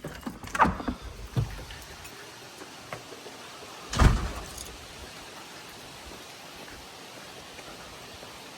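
A few clattering knocks in the first second and a half, then one heavy thump about four seconds in, over a steady hiss.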